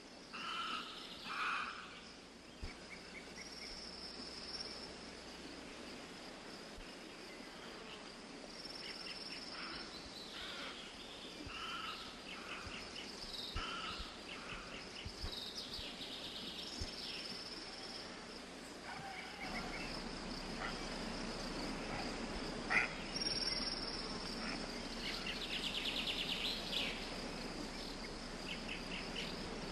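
Outdoor ambience of insects, crickets trilling steadily and high, with scattered bird chirps and calls. The low background noise grows fuller about two-thirds of the way through.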